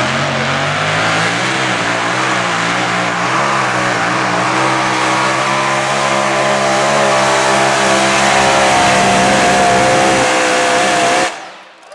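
Mini modified pulling tractor's engine at full throttle hauling the sled, its pitch climbing as the pull gets under way, then holding and wavering under load. The engine cuts off abruptly near the end as the pull ends.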